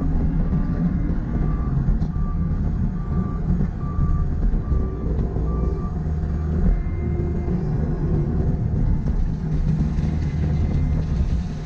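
Compact track loader's diesel engine running under work, with its backup alarm beeping steadily while it reverses; the beeping stops about halfway through.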